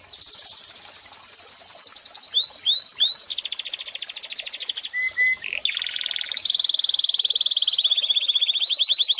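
Canary singing a fast song of rapid rolling trills, switching to a new trill or phrase every second or two, with a few swooping notes in between.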